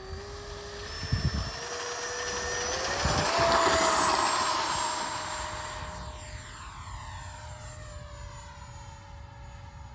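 Electric ducted fan of a 70 mm Freewing F-35 model jet whining as it throttles up for takeoff, its pitch rising in steps over the first three seconds. It is loudest as the jet passes about four seconds in, then fades as it climbs away. A couple of low thumps come about a second in.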